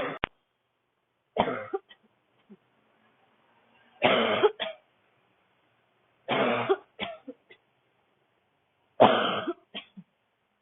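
A woman's dry, barking cough: five hard coughs spaced about two to three seconds apart, each followed by one or two short catches.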